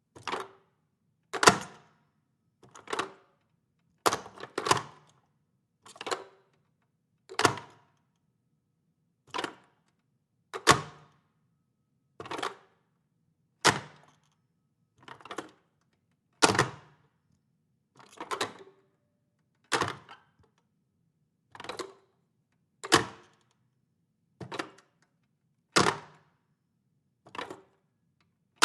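A corded telephone handset slammed down onto its cradle again and again, about twenty sharp clattering hangups, one every second and a half or so, with silence between.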